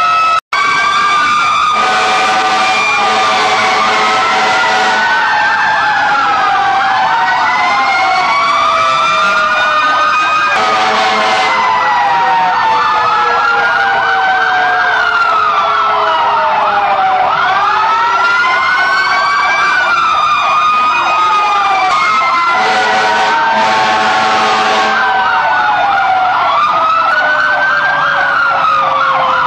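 Several fire truck sirens sounding at once, overlapping wails rising and falling with fast yelping warbles between them. The sound cuts out briefly about half a second in.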